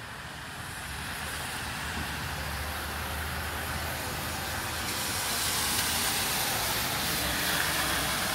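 An SUV driving along a flooded street, its tyres hissing through standing water over a low engine rumble, slowly growing louder over several seconds.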